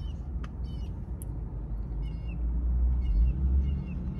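A small bird chirping repeatedly, a short call about every half-second to second, over a low steady rumble of traffic that swells about three seconds in.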